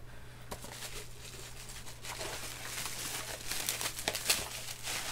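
Plastic bubble wrap crinkling and crackling as a wrapped DVD case is handled and pulled out of a cardboard box, sparse at first and much busier from about two seconds in.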